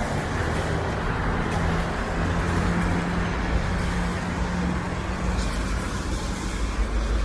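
Road traffic running on wet pavement, with a large vehicle's engine humming steadily close by for most of the stretch.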